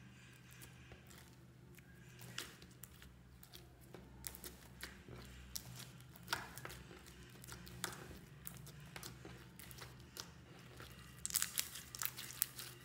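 Hands kneading and stretching a big mass of slime packed with foam beads: irregular crackles and crunches as the beads and sticky slime are squeezed, with a burst of louder crackling near the end.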